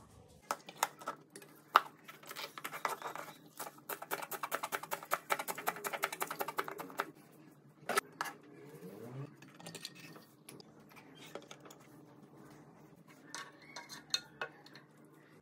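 Knife chopping spring onions on a plastic cutting board: scattered cuts at first, then a fast, even run of chops that stops about seven seconds in. A single sharp knock follows about a second later, with a few lighter clicks near the end.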